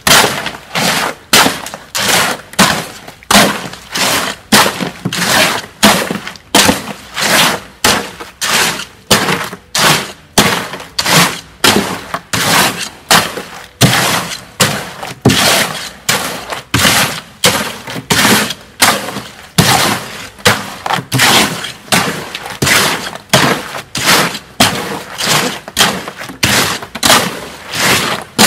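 Hoe dragging and chopping through stiff concrete in a steel wheelbarrow in a steady rhythm, a gritty scrape and crunch about three times every two seconds, as a superplasticizer powder is mixed into the batch.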